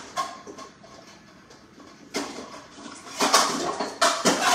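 Dishes and bowls clattering and clinking as someone rummages in a low kitchen cabinet. A small knock comes at the start, and louder bursts of clatter follow in the second half.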